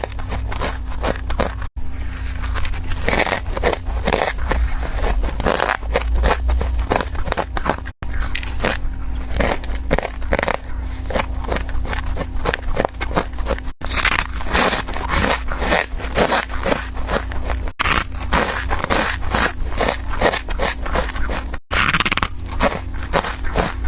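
Frost being bitten and chewed in fast, continuous crunches with a squeaky, crispy texture. The crunching is broken by a few brief, sudden silent gaps.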